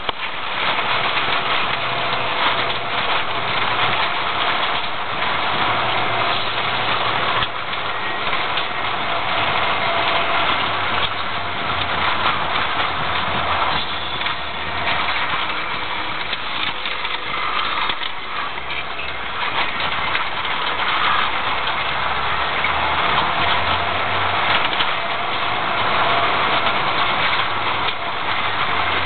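Car engine running as heard inside the cabin while driving on a rough dirt road, its note stepping up and down with the throttle, over a steady rush of tyre and road noise with frequent small knocks and rattles.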